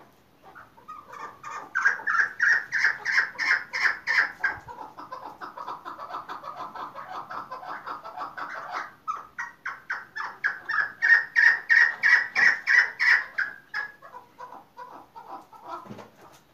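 Young chukar partridge calling in a long rapid series of short repeated notes, about four a second. The series is louder in two stretches with a softer run between them, and thins out near the end.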